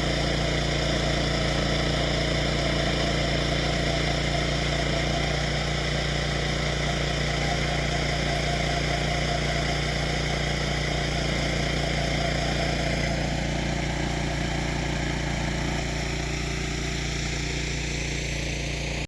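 Portable sawmill's gasoline engine running steadily under even load, with a constant pitch that eases very slightly near the end.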